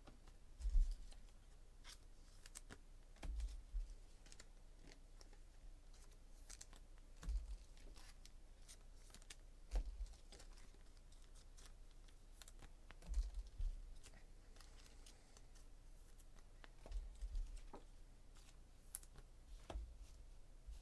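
Faint, sparse clicks and light taps, with a soft thump every three seconds or so: small objects being handled on a tabletop.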